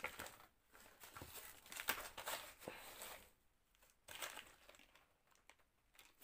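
Quiet rustling and crinkling of plastic bags and paper, with scattered light clicks and clatters of plastic RC car parts being moved about by hands rummaging through them.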